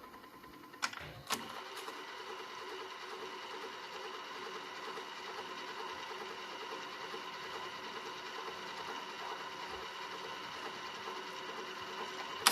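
Radiotekhnika MP-7301 cassette deck's tape transport mechanism: a couple of clicks as it is switched on, then a faint, steady mechanical whirr of the motor and spinning rollers, stopped with a sharp click near the end.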